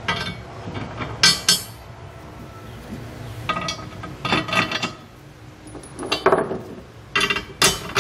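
Steel carriage bolts clinking against a steel fifth-wheel base rail as they are pushed down through its holes. The result is a string of separate sharp metallic clinks, about seven spread over the stretch, each with a short ring.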